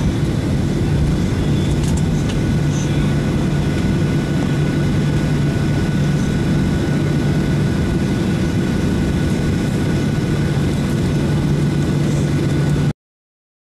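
Airliner cabin noise on approach: the steady drone of the wing-mounted turbofan engines and rushing airflow, with a constant low hum and a faint high whine. It cuts off suddenly near the end.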